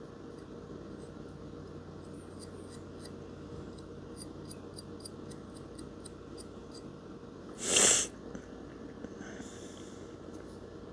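Quiet small-room background with faint light ticks. About eight seconds in there is one loud, short breath through the nose, a sniff or snort.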